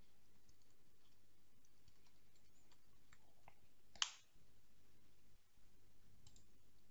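Faint computer-keyboard typing with scattered key clicks, then a single louder click about four seconds in as the file is saved.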